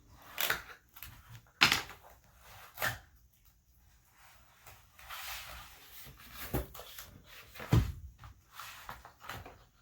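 Slip-and-slide packaging being handled and unpacked: a series of sharp knocks and bumps, about five in all, with a stretch of rustling a little past the middle.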